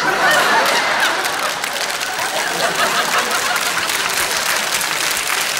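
Studio audience applauding, dense and steady, with some laughter in the first couple of seconds.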